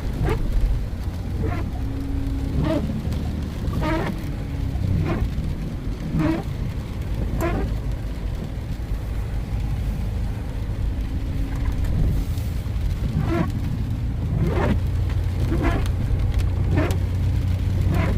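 Steady low rumble of a car's engine and tyres on the road, heard from inside the cabin. Short, higher-pitched sounds come now and then over it.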